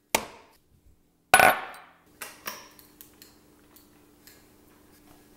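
Baking things set down and handled on a kitchen counter, a stainless steel mixing bowl among them: two sharp clatters about a second apart, then lighter knocks and clicks over a faint steady hum.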